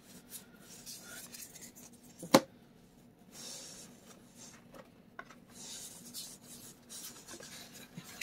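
Magic: The Gathering trading cards being handled: faint rustling and sliding as cards rub against each other and are flipped through, with one sharp tap a little over two seconds in.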